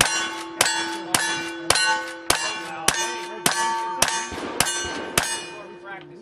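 A rifle fired ten times in quick, even succession, about one shot every half second, each shot answered by the clang and ringing of steel targets.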